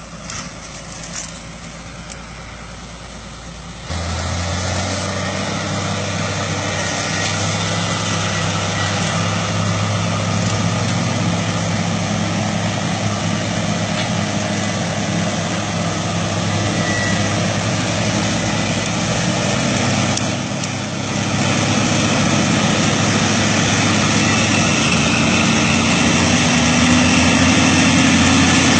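Diesel engines of a heavy wheeled machine and the log-laden truck it is towing uphill, working under load. The engine note jumps up sharply about four seconds in, dips briefly about two-thirds of the way through, then grows louder and higher as the machines come close.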